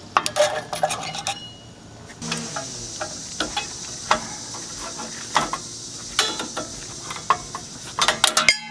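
Steel tools clicking, scraping and clinking against the rear parking-brake shoe springs and hardware as they are pried off with a screwdriver. Irregular sharp clinks, with a quick cluster of them near the end.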